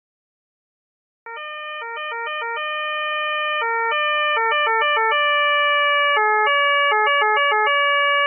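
Synthetic-sounding Austrian police two-tone siren that starts about a second in. Its two pitches, a fourth apart, alternate in quick runs broken by longer held high notes. It grows steadily louder.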